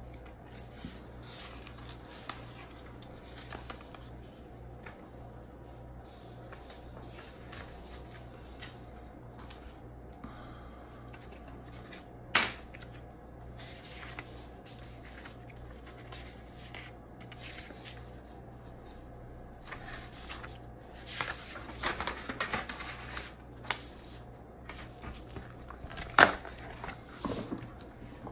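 Sheets of printed paper being handled on a desk: soft rustling that gets busier in the last third, with two sharp taps, one near the middle and one near the end, over a faint steady hum.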